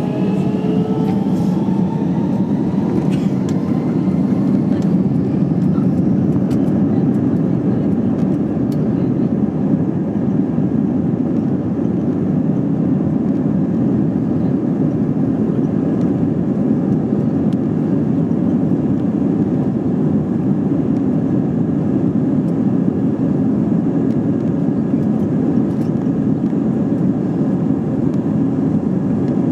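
Steady low rumble of an Airbus A320's IAE V2500 engines, heard inside the passenger cabin as the aircraft taxis, with a faint rising whine of the engines spooling up about a second in.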